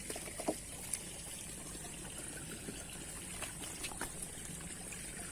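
River water trickling and flowing steadily, with a few faint small ticks.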